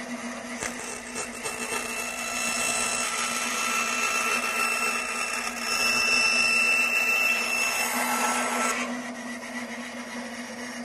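Band saw with a half-inch blade running with a steady hum and whine while it cuts a curve in a wood blank; the cutting grows louder from about two seconds in and eases off near the end.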